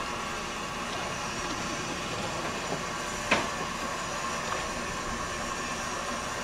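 Steam equipment of a steam-powered railroad pile driver hissing steadily, with one sharp knock about three seconds in and a few fainter knocks.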